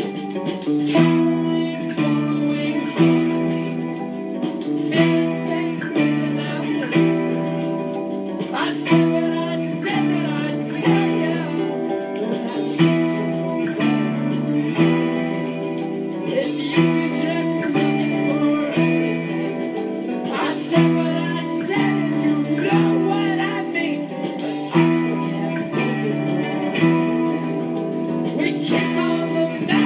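Acoustic guitar being picked in a steady, repeating chord pattern. The chords change about once a second and the phrase comes round again about every two seconds.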